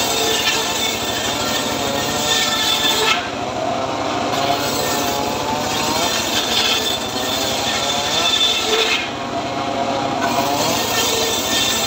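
Homemade cart-mounted circular saw ripping planks of hard, dry acacia wood: a continuous gritty cutting noise whose pitch wavers up and down as the blade takes the load. The cutting eases off briefly twice, about three seconds in and again near nine seconds, as the plank is shifted between passes.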